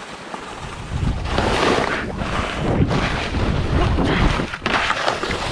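Wind rushing over a GoPro's microphone while skiing at speed, with skis on snow. The rushing grows louder about a second in and stays loud.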